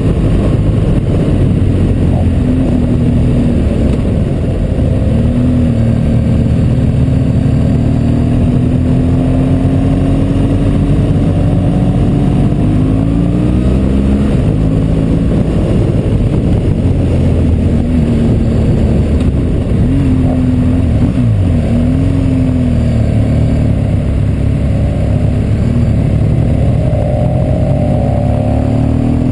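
Motorcycle engine running under way, heard from the bike itself with wind rushing past; its pitch climbs slowly and shifts up and down with throttle and gear changes, most noticeably about halfway through and again near the end.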